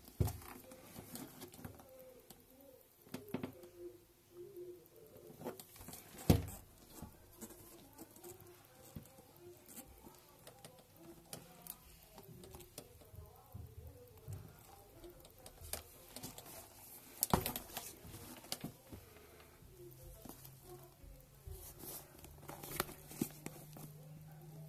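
A fabric handbag being handled up close: soft rustling and rubbing of the canvas and lining, with many small clicks and taps from its metal fittings and a few sharper knocks.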